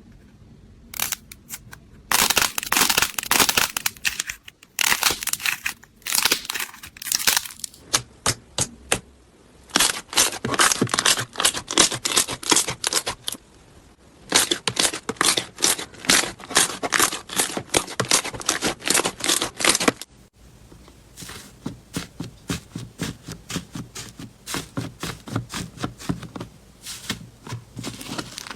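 Slime being squeezed and pressed by hand, giving rapid runs of crackling, popping clicks in several bursts, with a softer series of clicks near the end.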